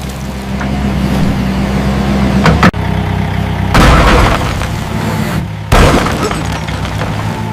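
Mini excavator engine running steadily, with loud noisy bursts of digging and breaking about four seconds in and again near six seconds.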